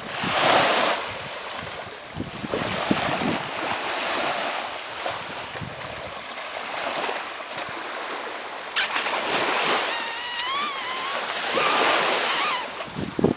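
Small ocean waves washing onto a sandy beach, the surf swelling and fading every few seconds. About nine seconds in come a few sharp clicks, then a short high, wavering cry.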